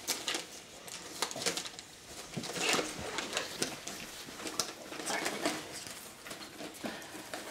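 Wrapping paper rustling and crinkling in small bursts as a gift is unwrapped, with faint murmurs from children.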